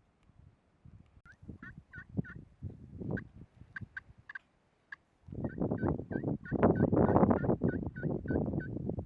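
Wild turkey yelping: a series of short, clipped notes, a few a second, starting about a second in and running in two strings. A loud rough noise rises under them from about five seconds in.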